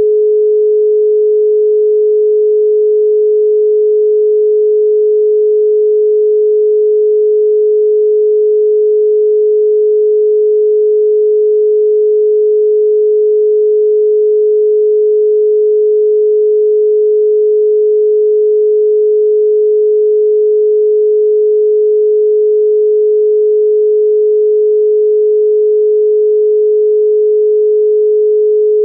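Telephone dial tone of the Philippine standard: one continuous, unbroken 425 Hz pure tone, the signal that the exchange is ready for the caller to dial.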